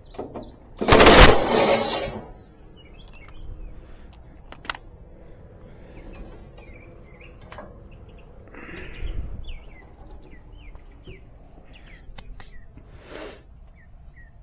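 Small birds chirping on and off, with scattered clicks and knocks and one loud rustling burst about a second in, typical of someone handling and opening a metal equipment panel.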